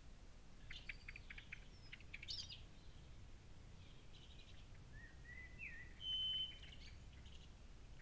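Faint bird calls: a quick run of chirps and clicks near the start, then a few rising whistled notes and a short steady whistle about six seconds in, the loudest sound, over a low hiss.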